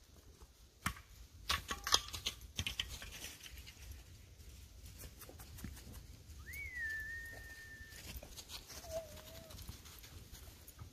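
Crunching steps on snow-covered dry leaves, a quick run of sharp crackles. About six and a half seconds in, a single whistle that rises briefly and then holds one note for about a second and a half, followed by a shorter, lower wavering tone.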